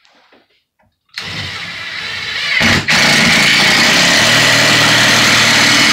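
Cordless drill driving a screw through a wall cabinet into the wall. The motor starts about a second in and runs for about a second and a half, stops for an instant, then runs again, louder and steady.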